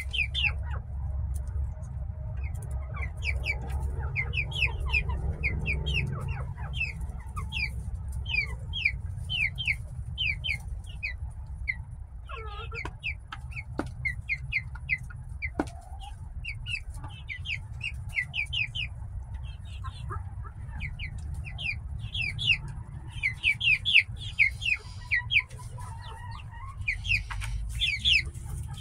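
Chickens settling to roost: many short, high, falling peeps, several a second, mixed with some lower clucking calls. A steady low hum runs underneath, and a few knocks come in the middle.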